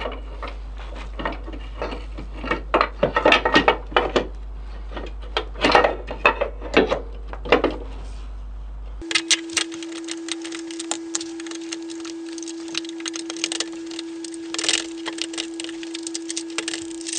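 Metal gearbox parts clinking and tapping as they are handled and fitted, a string of short sharp clicks and knocks. About halfway a steady tone sets in and runs under further light clicks.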